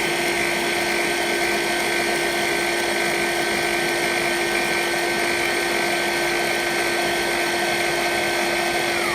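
CNC mill spindle motor running with a steady high whine. Right at the end its pitch starts to fall as the spindle begins to spin down, switched off by the CNC controller at the end of the job.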